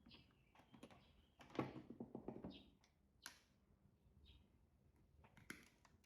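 Faint handling noise of electrical wiring work: scattered small clicks and rustles as a wire is fitted into a contactor terminal, with a cluster of clicks about one and a half to two and a half seconds in and a sharper click just after three seconds.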